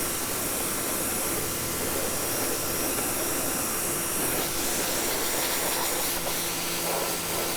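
Prymax 3000 PSI electric pressure washer running, with a steady motor tone under the hiss of its high-pressure water spray. A lower tone joins about six seconds in.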